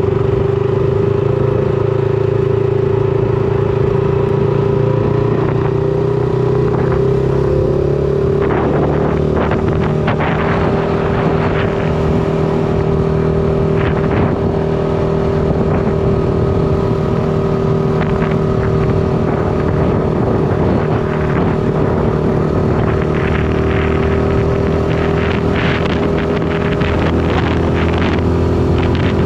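Shineray SBM 250S motorcycle engine running at a steady cruising pitch, with wind rushing over the microphone that gets gustier about a third of the way in.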